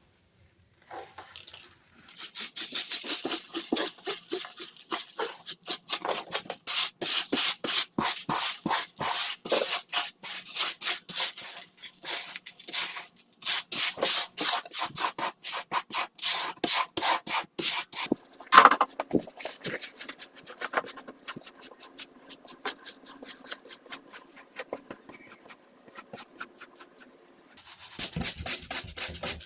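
Rapid scrubbing strokes on a keyboard being cleaned, a steady back-and-forth rub several times a second. It starts after a short pause, has one louder scrape a little past the middle, pauses briefly near the end and starts again.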